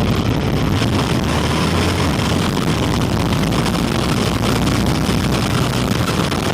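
Quanum Vandal RC buggy driving, a loud steady rush of motor and tyre noise that cuts off suddenly near the end.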